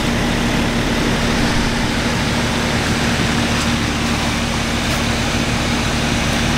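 Outdoor unit of a 1992 Rheem Classic X heat pump running in heating mode: a steady hum from its Copeland reciprocating compressor under the even rush of air from the fan.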